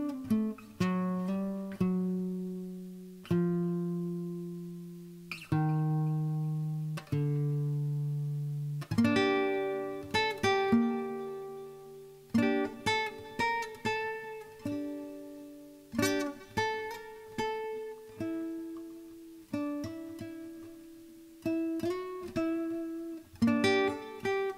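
Background music: a solo guitar picking single notes and chords, each note plucked sharply and ringing away. The notes are slow and held in the first third, then come faster.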